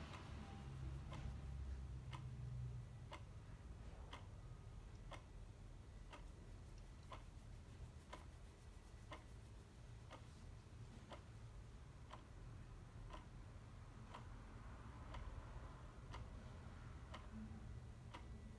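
Clock ticking steadily, faint and evenly spaced.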